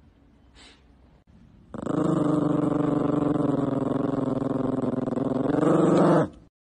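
A small long-haired terrier growling: one long, continuous growl that starts about two seconds in, gets a little louder near the end and then stops.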